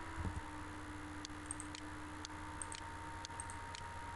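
Computer mouse clicking and ticking: a series of light, irregularly spaced clicks from about a second in, over a faint steady electrical hum.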